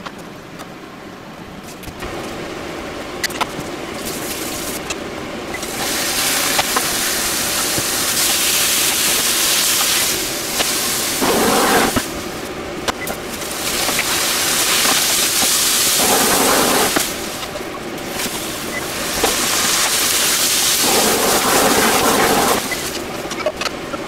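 Large aluminium pot of water at a rolling boil on a gas hob: a loud steady hissing and bubbling that swells and eases several times. A few faint clicks come at the very start, before the boiling sets in.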